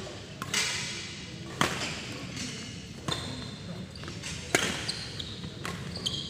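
Badminton rackets striking the shuttlecock in a doubles rally: four sharp hits, roughly a second and a half apart, each with a short echo in the hall.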